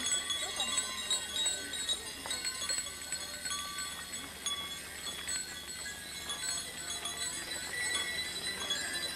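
Many small bells ringing together continuously, a jangle of overlapping high tones, with faint crowd voices underneath.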